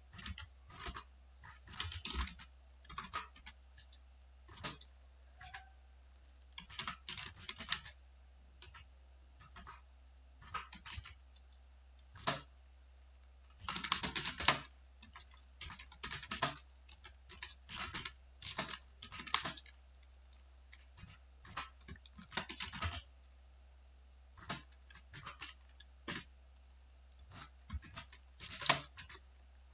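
Typing on a computer keyboard: uneven runs of quick key clicks broken by short pauses, over a steady low hum.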